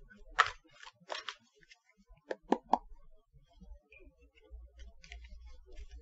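Oracle cards being handled and drawn from the deck: a few soft, sharp card clicks and snaps, the last three close together, then a faint low rumble of handling near the end.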